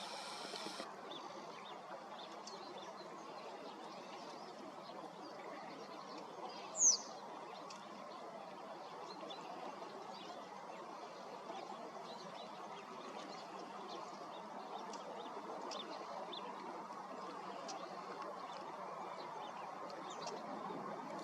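Birds chirping and calling around a lake in early morning, over a steady low background hum. Short high chirps come throughout, and one loud high call falls in pitch about seven seconds in. A brief hiss sounds right at the start.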